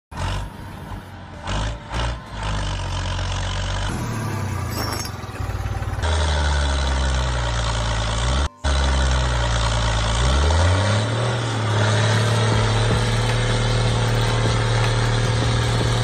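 A motor running with a steady low hum. Its pitch slides down and back up about ten seconds in, and the sound breaks off abruptly a few times.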